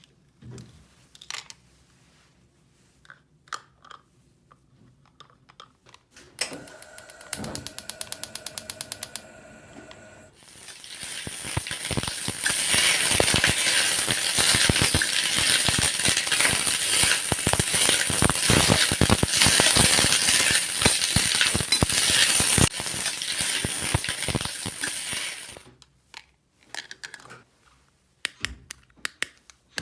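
Mechanical ratcheting clicks: a few scattered clicks, then an even run of quick clicks, then a long stretch of loud, dense, rapid clicking that stops suddenly, with a few clicks after.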